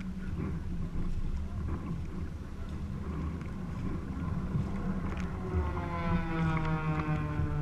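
A boat engine's low rumble with wind on the microphone. About two-thirds of the way in, a pitched engine tone comes in and slowly drops in pitch.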